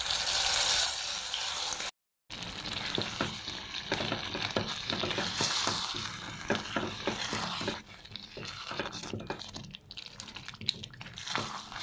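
Ground toor dal added to hot oil tempering in a pan, sizzling at first, then a spoon stirring with many quick scrapes and clicks against the pan. The sound cuts out briefly about two seconds in.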